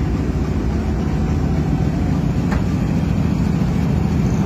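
Steady low rumble of a large engine running at idle.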